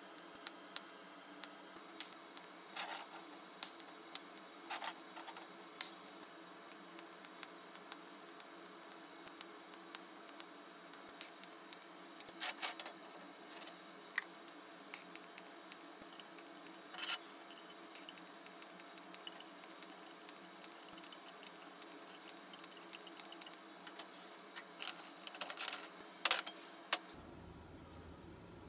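Scattered light metallic clicks and taps of steel stove parts being handled on a steel welding table, over a steady workshop hum. Near the end the hum gives way to a low rumble.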